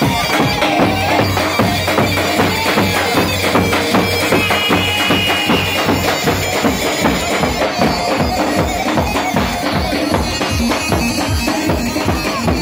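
Traditional Kurdish wedding dance music: several davul bass drums beaten in a quick, steady beat under a shrill, reedy melody.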